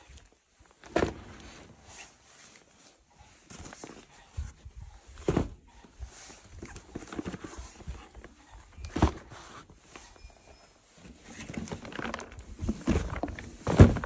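Toys and packaging being handled: a string of sharp knocks and clacks a few seconds apart with rustling between, busiest and loudest near the end.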